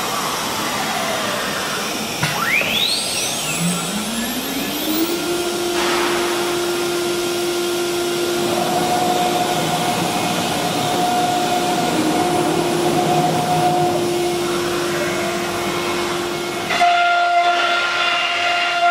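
CNC router spindle whining: its pitch rises as it spins up a few seconds in, then holds steady over a hiss of workshop machinery. Near the end the whine changes to a higher steady pitch.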